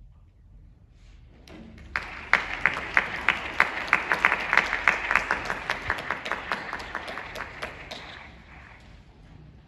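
Small audience applauding as a piece of music ends, starting about two seconds in and dying away near the end. One pair of hands close by claps loudly and evenly, about three claps a second, over the rest of the applause.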